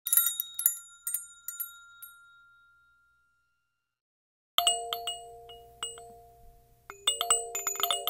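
Intro logo jingle: a cluster of bright tinkling chime hits that ring out and fade over about three seconds, then after a short silence a held chord with more sparkling chime hits over it, the chord changing near the end.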